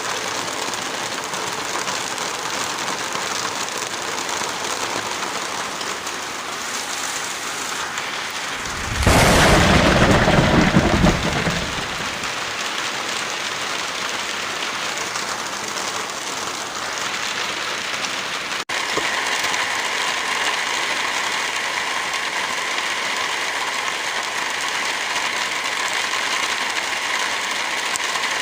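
Steady rain, with a deep rumble of thunder about nine seconds in that lasts roughly three seconds. Just before the middle of the clip there is an abrupt splice, and after it the rain takes on a brighter, hissier tone.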